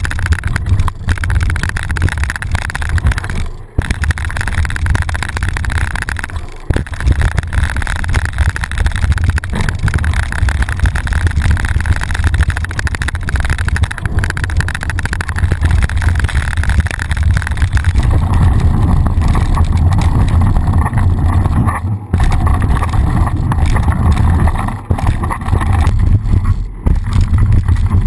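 Mountain bike riding fast down a dirt trail: wind buffeting the bike-mounted action camera's microphone in a heavy, steady rumble, with the tyres rolling over the dirt. The sound drops out briefly a few times.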